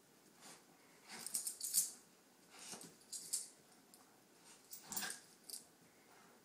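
Two dogs playing tug-of-war with a toy: scattered short bursts of scuffling and light jingling in several clusters, the loudest a little under two seconds in and again about five seconds in.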